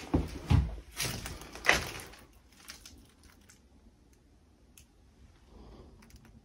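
Footsteps, about four heavy steps in the first two seconds, then a few faint clicks near quiet.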